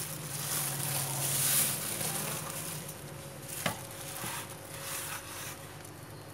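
Hands rubbing and patting dry frying-batter powder onto a sticky-rice-coated chicken and sweeping it across a metal tray: a soft, hissing rustle of powder, loudest in the first two seconds, with a single sharp tap about three and a half seconds in.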